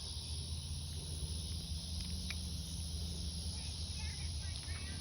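Steady outdoor background of a low hum and an even high hiss, with faint distant voices shouting about four seconds in.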